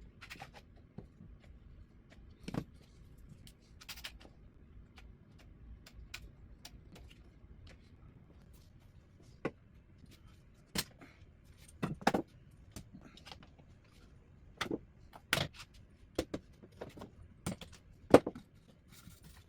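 Scattered light clicks and knocks of objects being handled, irregularly spaced with a few louder ones, over a faint low hum.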